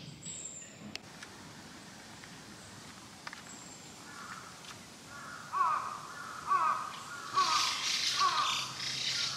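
A crow cawing four times in the second half, about one caw a second, with a couple of faint high bird chirps earlier.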